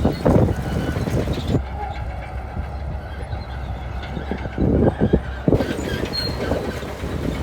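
Shantui crawler bulldozer's diesel engine running under the clatter of its steel tracks, with a few heavy clanks; the loudest come about a second in and around five seconds in.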